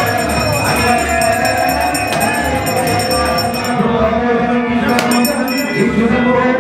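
Indian devotional music: voices singing over a drum beat and jingling percussion. The jingling fades out about halfway through.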